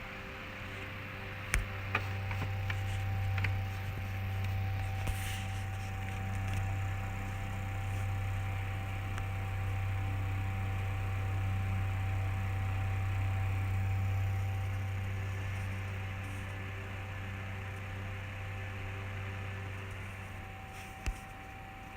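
USB fan running with a steady low hum over its airflow noise, with fainter higher steady tones above it. A few small clicks sound near the start and one near the end.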